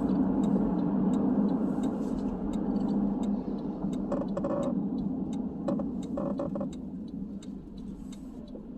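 Car running, heard from inside the cabin: a steady low hum that gradually quietens, with light clicks and two short pitched sounds just past the middle.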